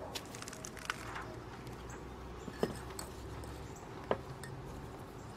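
Quiet room tone with a low steady hum, broken by a few short, faint ticks.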